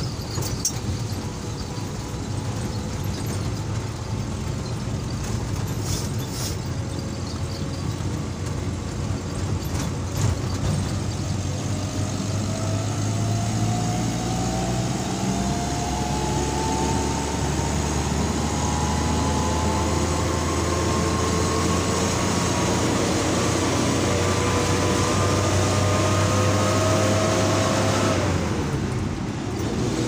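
Vehicle engine and road noise heard from inside a moving vehicle. The engine note climbs slowly for about fifteen seconds, then falls away suddenly near the end.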